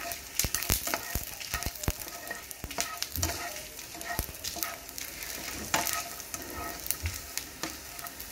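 Peanuts, garlic and chillies sizzling and crackling in a little hot oil in a ceramic-coated frying pan, with irregular clicks and scrapes from a slotted spatula stirring them as they roast.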